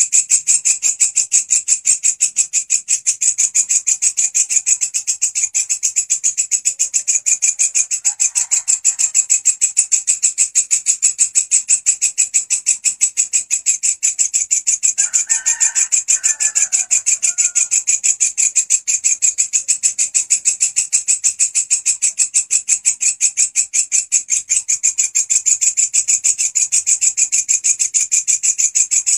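Walang kecek singing katydid stridulating: a loud, steady, high-pitched buzz made of rapid, evenly spaced pulses that never breaks. Faint bird calls sound behind it around 8 seconds in and again around 15 to 17 seconds.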